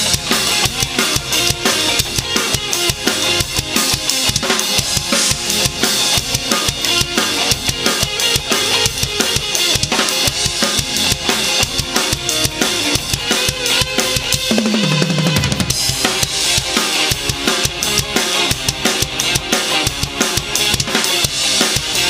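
Custom DW Collectors Series Waterfall Bubinga drum kit played in a steady groove of kick, snare and cymbals, along with a ska backing track.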